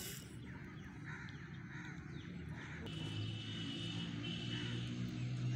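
Crows cawing, a few short calls. A steady low hum comes in about halfway through.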